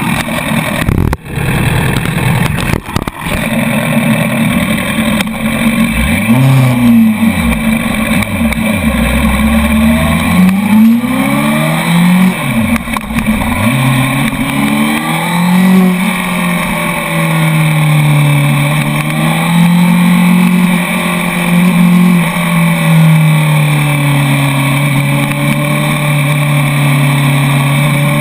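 Honda CBR sportbike's inline-four engine from an onboard camera: running at a standstill, then about six seconds in revving up and dropping back several times as it pulls away and changes up through the gears, then running steadily with small rises and falls in revs.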